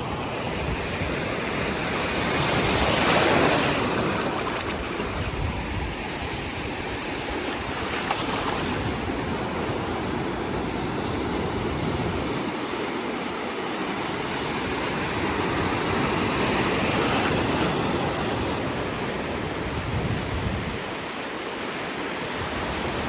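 Ocean surf breaking and washing up the shore, swelling several times as waves come in, the loudest about three seconds in. Wind rumbles unevenly on the microphone underneath.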